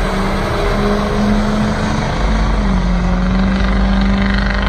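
Pickup truck engine held at high revs during a burnout at the drag-strip starting line: a loud, steady drone that steps down slightly in pitch about two and a half seconds in.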